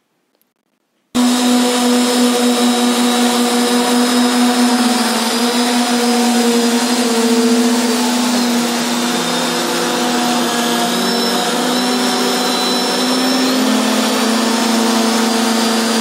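Electric motors and propellers of a remote-control hovercraft running: a steady high whine over rushing air, starting abruptly about a second in, its pitch shifting a little now and then as the throttle changes.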